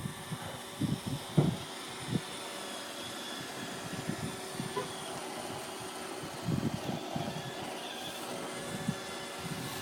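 iRobot Roomba 580 robot vacuum running: a steady motor and brush whir with a faint held tone. Irregular low thuds come through it, clustered about a second in and again from about six and a half to seven and a half seconds.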